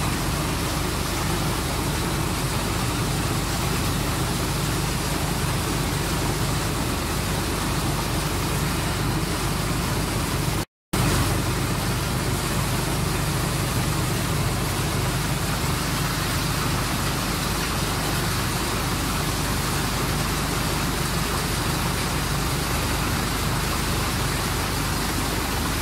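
Steady rushing noise with a constant low rumble underneath, cut off for a moment about eleven seconds in.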